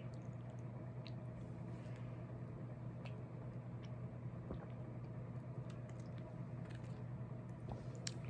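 Small wet mouth sounds and scattered faint clicks as a person sips and swallows from a plastic bottle with a nozzle, over a steady low hum.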